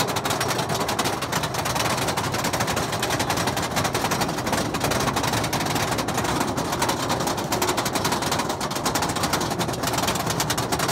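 Twisted Colossus roller coaster train climbing its lift hill, with a rapid, steady clacking of the lift chain and anti-rollback dogs.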